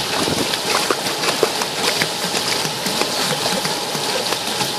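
Pool water splashing and sloshing as a pug puppy paddles its legs, held at the surface, with a run of small splashes over a steady wash of water noise.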